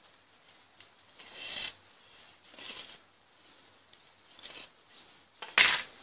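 Four separate rasping strokes of a hand tool rubbed or scraped across a surface, like filing or hand sanding, with the last stroke the loudest.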